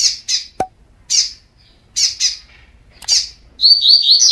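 Double-collared seedeater (coleiro) giving short harsh chip calls, several of them in quick pairs, then near the end breaking into a fast run of whistled song notes. A single sharp click sounds about half a second in.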